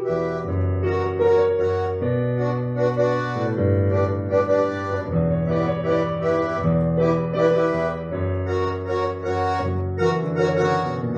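Instrumental music: sustained chords over a bass line that moves to a new note every second or so, with no singing.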